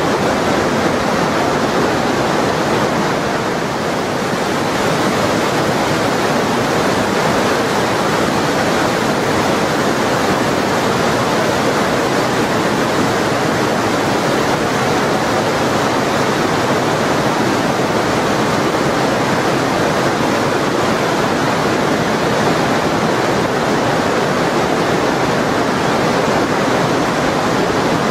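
The glacier-fed Lütschine river rushing through a narrow rock gorge: a loud, steady rush of water.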